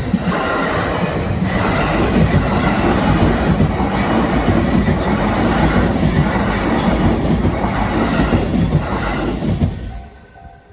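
A train passing over a level crossing, loud for about ten seconds and dropping away sharply near the end. As it clears, the crossing's warning bell is heard ringing in steady repeated pulses.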